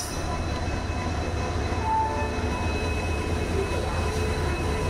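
WDP-4B diesel-electric locomotive pulling slowly into the platform, its engine giving a steady low rumble. A short high tone sounds about two seconds in.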